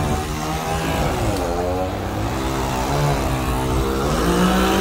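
An engine running steadily, its pitch wavering up and down and rising a little near the end.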